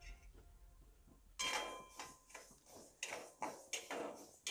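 Metal spoon stirring mustard seeds in a dry metal kadhai while they roast: short scraping strokes against the pan, about two or three a second, starting about a second and a half in.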